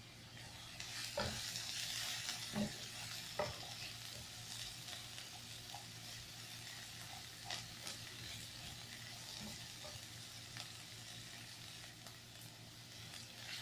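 Chopped onions sizzling in hot vegetable oil in a nonstick wok while a silicone spatula stirs them, with a few light clicks of the spatula against the pan. The sizzle rises about a second in and then eases off gradually.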